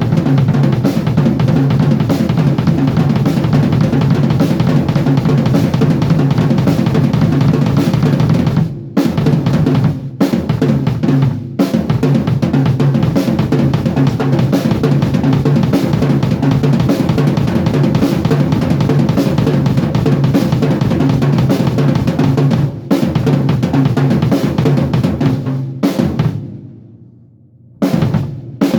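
Acoustic drum kit played in fast, continuous warm-up patterns of quads and triplets, crossovers moving around the kit, with bass drum, snare and cymbals. The playing breaks off for a moment a few times, and near the end it stops and the kit rings away before starting again.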